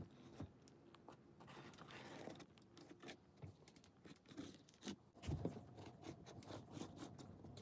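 Faint scratching and rubbing of a marker tracing an outline on case foam, with many small irregular scratches and a few soft handling knocks about five seconds in.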